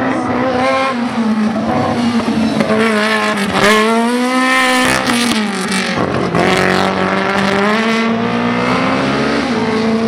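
Single-seater formula race car's engine revving hard, its pitch rising and falling repeatedly as the car accelerates and brakes between slalom gates. It climbs sharply about three and a half seconds in and drops away around five seconds.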